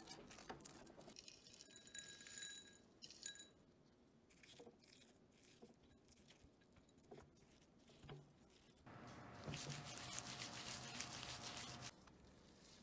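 Quiet food-handling sounds: a spatula and spoon working thick red bean paste and crushed nuts, with light clinks and scrapes against a glass bowl. A louder steady rushing noise runs for about three seconds in the latter part, then stops abruptly.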